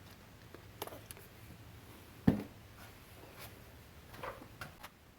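Handling sounds while a car door handle is cleaned with a cloth and isopropyl alcohol: a few light clicks, one sharp knock a little over two seconds in, and faint rubbing near the end.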